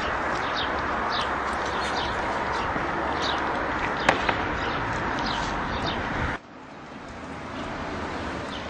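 Many short bird chirps over a steady rushing noise, with two sharp clicks about four seconds in. All of it cuts off abruptly a little after six seconds, and a softer wind-like rush then builds.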